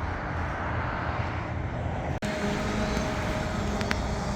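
Steady outdoor engine rumble, with a sharp momentary dropout a little past halfway, after which a steady hum with several held tones joins it.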